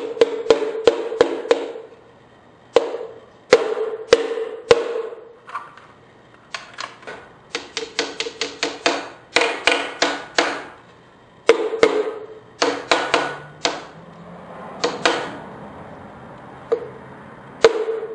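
Hammer tapping pistons down through a piston-ring compressor into the cylinder bores of a Ford 200 straight-six block. The sharp taps come in quick runs of several at a time, and each rings briefly.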